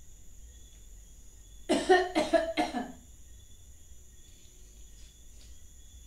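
A woman coughing on purpose, a quick run of about four coughs starting a little under two seconds in and lasting about a second.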